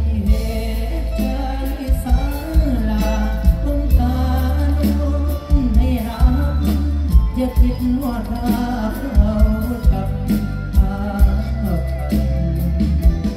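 Live stage-show music through a loud PA: a singing voice carrying the melody over a heavy bass line and a steady drum beat.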